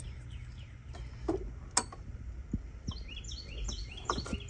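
A few sharp clicks and small knocks of hand work on engine-bay screws and trim clips, over a steady low hum. Birds chirp in quick short runs in the background, mostly in the second half.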